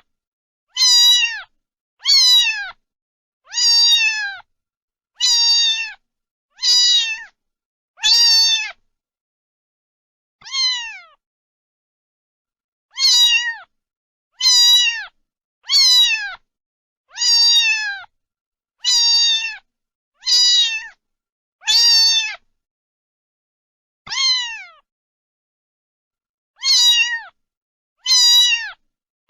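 Domestic cat meowing over and over: about seventeen short meows, each falling in pitch, roughly one every one and a half seconds, with a few longer pauses between them.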